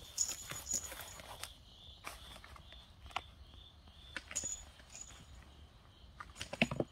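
Kittens scuffling and rustling on a cloth blanket, their harness leashes dragging, with a louder flurry of scuffling near the end. A cricket chirps steadily behind it, a few short high chirps a second.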